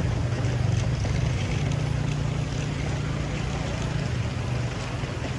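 Steady low engine drone over a broad hiss, easing off near the end.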